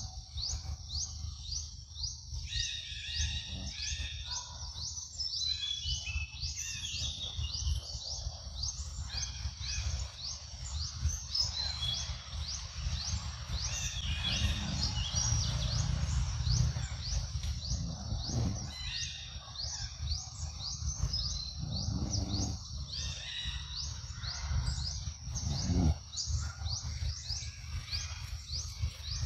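Forest ambience: a high, rising chirp repeated steadily, about two to three times a second, with scattered bird chirps coming and going over a low rumble.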